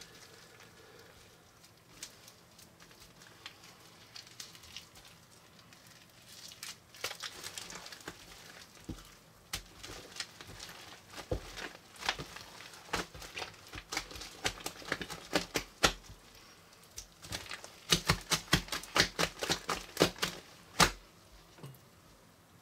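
Sticky slime mixed with Floam foam beads being kneaded and pulled apart by hand, giving wet clicks and crackles. They are sparse at first and come in a quick run near the end.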